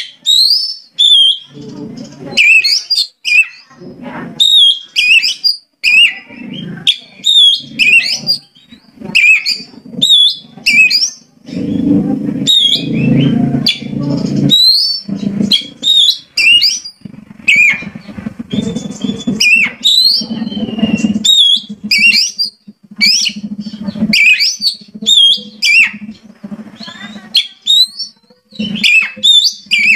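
Oriental magpie-robin (kacer) singing in full voice: a loud, fast run of varied whistled notes and sweeping glides, phrase after phrase without a break. A lower rough, buzzing sound runs under much of the song and is strongest a little before halfway.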